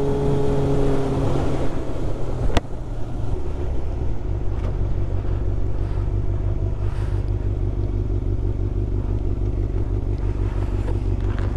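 1996 Yamaha YZF600's inline-four engine running under way. About two and a half seconds in there is a sharp click, and the engine note drops to a lower, steady run.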